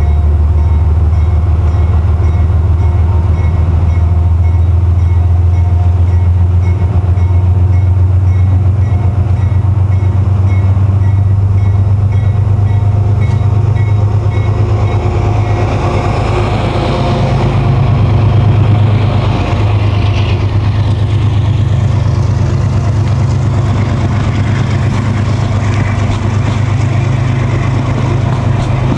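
Amtrak GE Genesis diesel locomotive running past at close range with a loud, steady low engine drone and a repeating high ringing through the first half. From about halfway, the stainless-steel passenger cars roll by with rushing wheel-on-rail noise.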